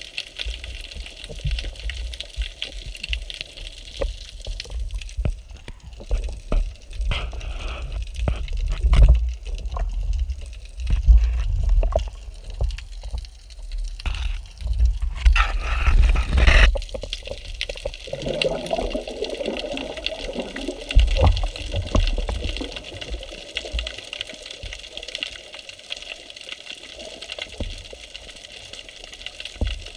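Water sloshing and bubbling around an underwater camera, with dull low thumps as the swimmer moves near the surface. A louder burst of splashing about halfway through, then calmer water noise.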